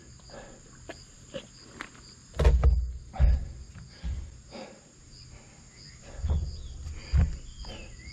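Insects calling: a steady high shrill with a pulsing chirp about twice a second. Irregular low rumbling thumps and knocks break in, loudest about two and a half seconds in and again after six seconds.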